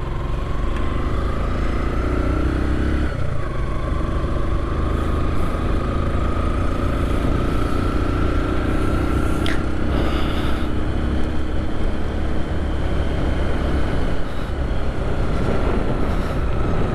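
Motorcycle engine under way, its pitch climbing as it accelerates and dropping at a gear change about three seconds in, with another change near ten seconds. Heavy wind rumble on the microphone runs underneath.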